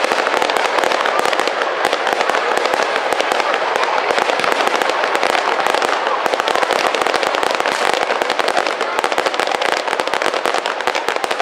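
Aerial fireworks bursting in a dense, unbroken barrage of rapid crackles and bangs.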